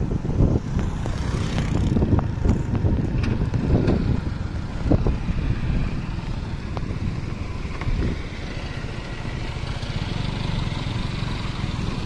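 Motorcycles running past, over a heavy low rumble with irregular knocks in the first half and a steady hiss in the last few seconds.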